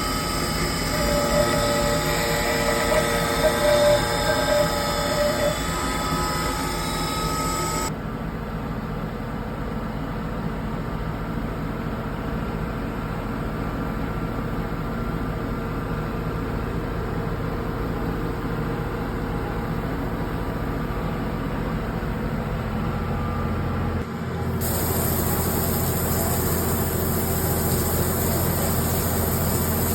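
CNC machine cutting metal, a steady mechanical run with a high whine and squealing tones. The sound turns abruptly duller about 8 seconds in, and a brighter hiss comes back suddenly near 24 seconds.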